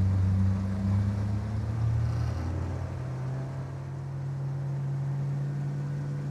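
A 115-horsepower Yamaha outboard motor running on a small aluminium-style fishing boat under way, a steady drone whose pitch shifts over the first few seconds and then holds steady.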